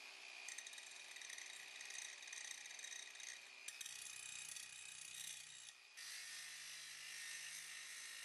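Angle grinder disc grinding down a weld repair on the corner of a rusty charcoal iron's metal body: a steady high hiss of disc on metal with a thin whine, changing abruptly twice, a little under halfway and about three quarters of the way through.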